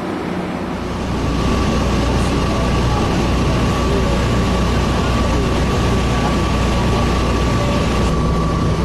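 Diesel-hauled passenger train rolling along, heard from on board: a steady rumble of wheels on rail with a steady high whine over it, growing louder about a second in after a lower hum.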